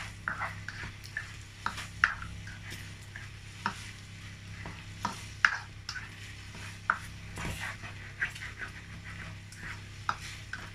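A black plastic spatula stirring thick, simmering korma sauce in a frying pan, with irregular scrapes and taps against the pan.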